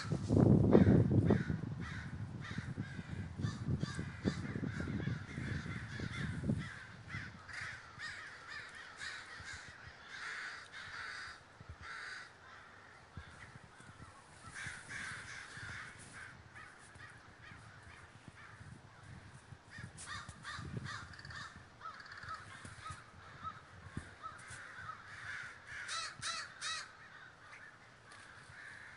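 A large flock of American crows cawing constantly, many calls overlapping. A low rumble lies under the calls for the first six seconds or so, then drops away.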